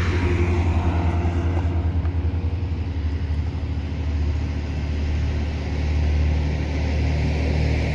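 Vehicle engine idling, a steady low hum that holds level throughout.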